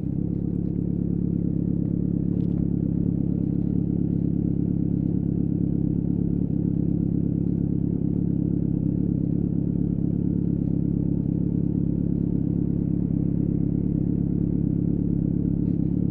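Kawasaki Z900's inline-four engine idling steadily through an aftermarket full-system exhaust, holding an even pitch.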